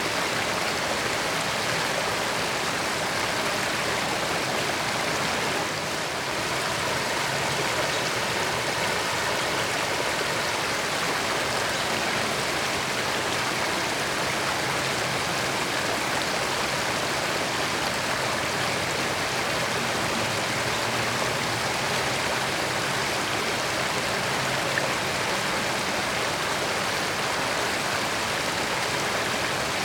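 A creek running steadily, its water rushing and burbling evenly.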